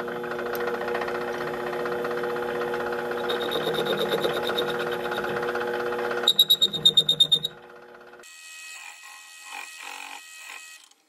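Vevor 7x14 mini lathe running with a steady motor and gear whine while its tool makes a facing cut across the adapter plate. About six seconds in, a loud high squeal pulses rapidly, about six times a second, for about a second, then the sound drops to a quieter hum with light ticks.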